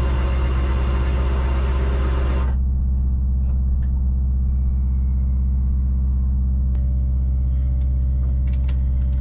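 The boat's diesel wing engine runs steadily at raised revs, around 1800 RPM, to power the hydraulic davit crane, giving a constant low hum. A higher hiss rides on top of it for the first two and a half seconds and returns about seven seconds in.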